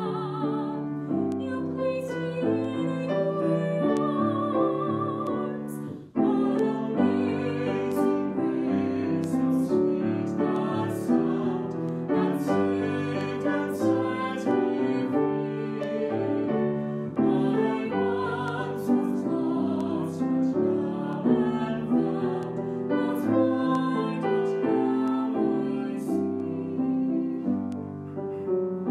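A woman singing a solo with vibrato, accompanied by a grand piano, with a brief break about six seconds in before voice and piano come back in.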